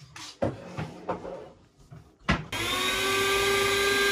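A few knocks and clatters of kitchenware, then, about halfway through, an electric citrus juicer's motor starts and runs steadily at one pitch while an orange half is pressed onto its reamer.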